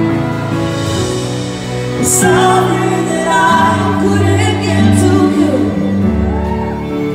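Live concert music: a woman singing into a microphone over long held keyboard chords, recorded from the audience.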